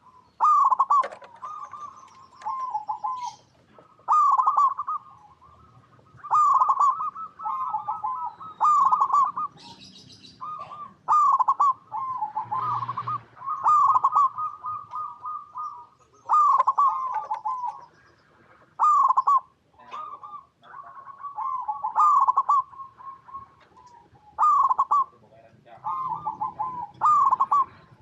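Zebra doves (perkutut) cooing: repeated bursts of quick, bubbling coo phrases, one after another with short gaps, with faint high chirps over them.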